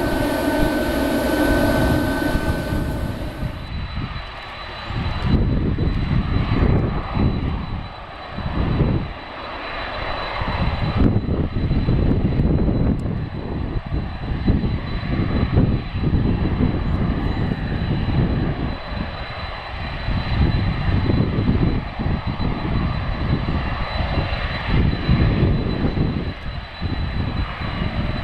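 Boeing 767 freighter's jet engines. A high whine with steady tones is heard for the first few seconds and drops away about three and a half seconds in. A deep rumble follows that swells and fades unevenly.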